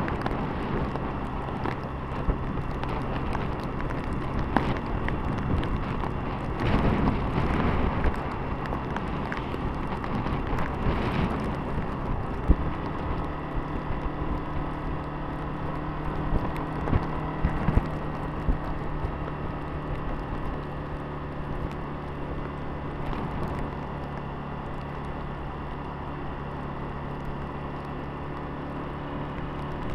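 Honda CBF125's single-cylinder four-stroke engine running as the motorcycle rides along, with rushing wind noise on the microphone. About twelve seconds in, the engine settles to a steady note as the bike cruises.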